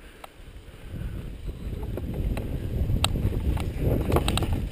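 Mountain bike rolling down a rocky dirt trail: a low rumble of tyres on gravel and wind on the microphone builds from about a second in, with a few sharp clicks and rattles from the bike over the rough ground.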